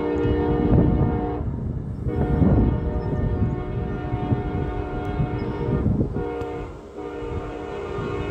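Locomotive multi-chime air horn sounding a steady chord in long blasts, breaking off about a second and a half in and again around six seconds, over a low rumble.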